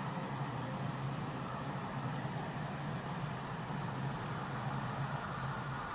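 Steady low motor hum over a constant background hiss; the hum fades near the end.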